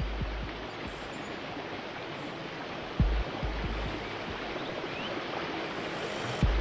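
Steady rush of flowing water, like a stream, with two short low thumps, one about halfway through and one near the end.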